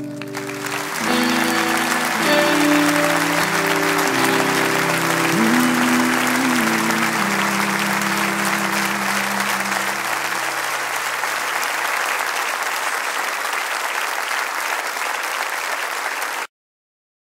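The closing chords of a worship song ring out and fade away while an audience applauds; the applause starts about a second in, keeps going after the music has died away, and cuts off suddenly near the end.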